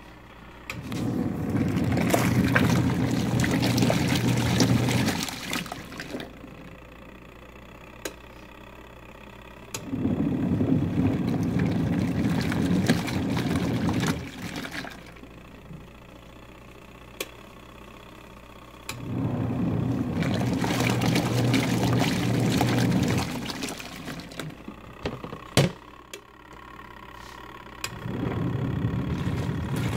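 Small twin-tub washing machine's wash tub churning water and clothes, its motor running in spells of about four seconds with pauses of about four seconds between, as the wash cycle starts and stops. Water sloshes and splashes throughout.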